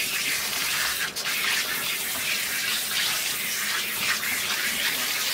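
Handheld shower sprayer running steadily, water spraying over a wet cat's coat to rinse it in a bathtub.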